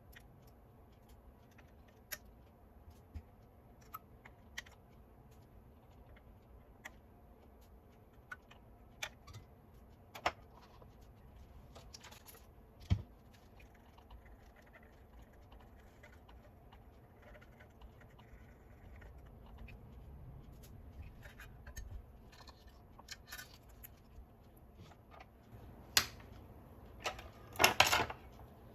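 Scattered small clicks and taps of small plastic and metal parts being handled during repair work on a toy gyro stage's mechanism, with a louder burst of clattering near the end.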